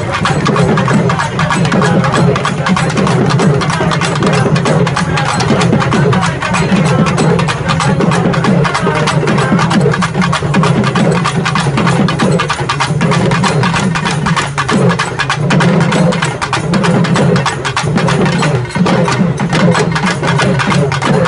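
An urumi melam troupe drumming: fast, dense stick strokes on urumi hourglass drums over a steady low drone that drops out briefly a few times in the second half.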